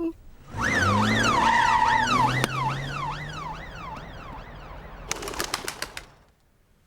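Cartoon police car siren yelping in quick rising-and-falling sweeps about twice a second, loud at first and fading away over a few seconds. A short run of clicks comes near the end.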